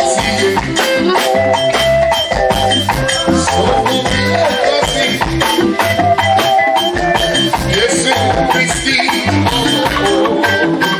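Live band playing upbeat praise music with a busy, steady percussion beat and a melody line over it.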